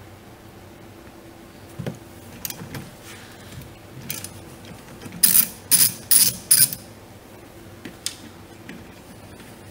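Ratchet wrench with a 13 mm socket clicking as it backs off a wiper arm nut: a few light clicks, then four short bursts of ratcheting about two a second a little past the middle, and one last click near the end.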